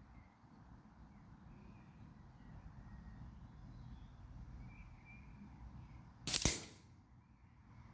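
A single shot from a Weihrauch HW50S spring-piston air rifle, one sudden report about six seconds in that dies away within half a second, with faint bird chirps in the background.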